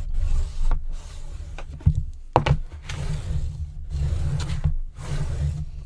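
A hand-held burnishing tool rubbed firmly back and forth over an adhesive paper construction strip on a chipboard box, pressing the strip down along the seam. A low, uneven rumble runs under the rubbing, with a few sharp knocks.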